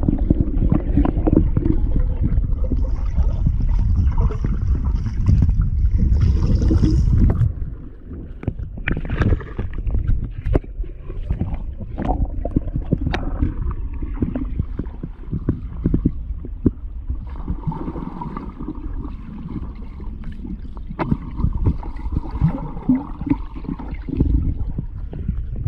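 Muffled underwater sound of a golden retriever diving and pawing at a stony bottom. A heavy low rumble of churning water fills the first seven seconds or so, then it drops to gurgling, with many sharp clicks and knocks of stones.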